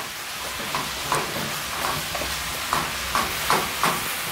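Beef and bell peppers sizzling in a frying pan as a plastic spatula stirs them, with short scrapes and taps of the spatula against the pan several times.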